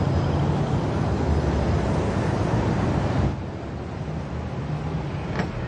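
KTM 690 SMC R single-cylinder engine running through a Wings aftermarket exhaust, a steady mechanical sound that drops somewhat in level about three seconds in.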